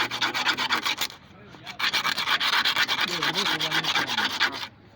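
Fast, even back-and-forth rasping or scrubbing strokes, like a file or stiff brush worked over a hard surface, in two runs with a short pause a little after a second in, stopping again just before the end.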